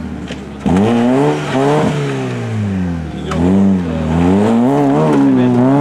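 Rally car engine on a gravel stage. The throttle comes on hard about a second in, and the revs then climb and drop several times as the car slides around a hairpin and accelerates away.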